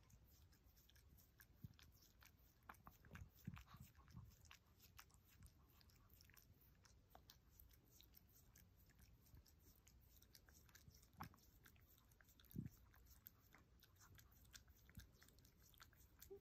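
Faint, wet licking and tongue smacks from a chocolate-and-tan Chihuahua licking a person's face: many small irregular clicks and slurps, with a few slightly louder smacks.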